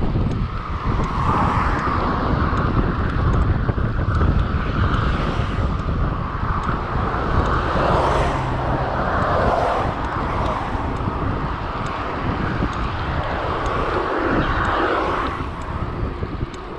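Wind rushing over the microphone of a moving bicycle, with a steady low rumble of road noise that swells and eases.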